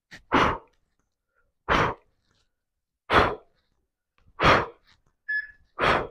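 A man's sharp, forceful exhalations, one with each rep of bicycle elbow-to-knee crunches: five short breaths out, about one every second and a half.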